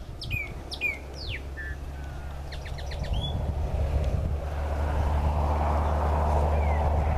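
Chopi blackbird singing: a few clear whistled notes that sweep down, then a quick run of short clicking notes and a rising whistle, over a low steady hum. From about halfway a rushing noise grows louder and covers the song.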